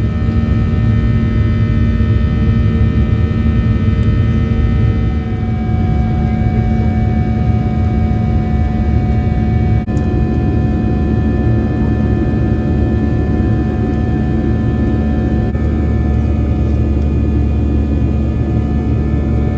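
Jet airliner's turbofan engines at climb power just after takeoff, heard inside the cabin: a loud, steady rumble with a steady whine of several tones over it.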